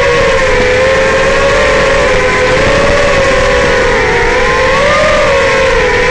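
Racing quadcopter's four Racerstar BR2205 2600KV brushless motors spinning Dalprop Cyclone 5-inch three-blade props, making a loud whine of several close pitches that waver up and down with the throttle.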